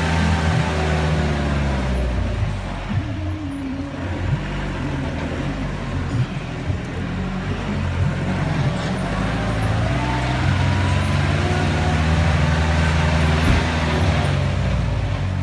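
Vehicle engine running steadily while driving slowly over a rough dirt track, with irregular knocks and rattles from the body and suspension over the bumps.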